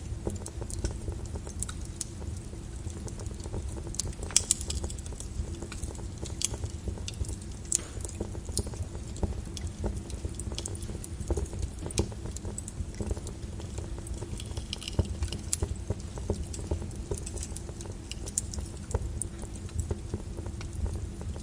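Wood fire in a fireplace crackling, with irregular sharp pops over a low steady rumble; one louder pop about four seconds in.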